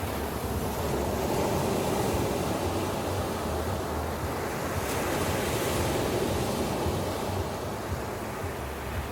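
Ocean waves breaking and washing on a beach, a steady surf that swells and eases, with a low rumble of wind on the microphone.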